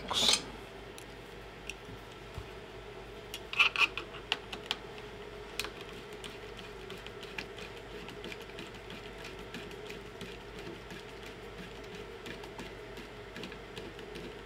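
Small clicks and taps of hand tools and plastic parts as the Prusa i3 MK3S 3D printer's electronics box is being opened, with a cluster of sharper clicks about three and a half seconds in. A faint steady hum runs underneath.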